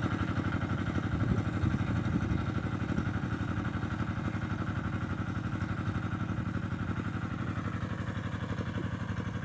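Walk-behind tractor's engine running steadily while ploughing, with a fast even firing beat.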